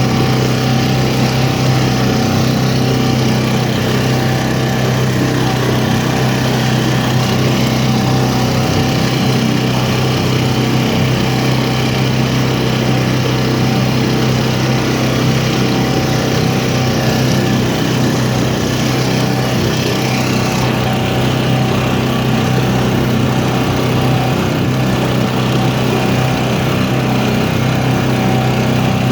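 An engine running steadily at a constant speed, a low hum that holds one pitch throughout.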